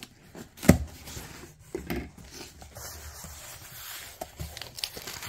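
A cardboard shipping box being cut open by hand, with a sharp knock about a second in, then scattered clicks and a rustling, scraping hiss as the tape is slit and the flaps are pulled back.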